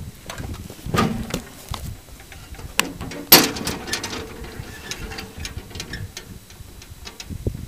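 Irregular knocks and clicks. One sharp, loud knock about three seconds in is followed by a brief ringing tone that fades.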